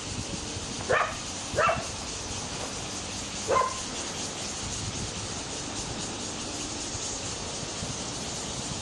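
A dog barks three times in short, sharp barks: two close together about a second in, then one more a couple of seconds later.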